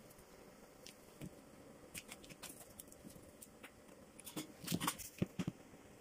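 Faint scattered clicks and light taps of hands laying tea biscuits into a glass dish, with a quick run of louder clicks between about four and a half and five and a half seconds in.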